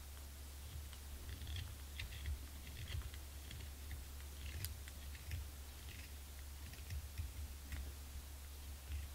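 Small knife scraping and paring a cane clarinet reed blank by hand: short, dry scrapes and clicks at irregular intervals, over a steady low hum.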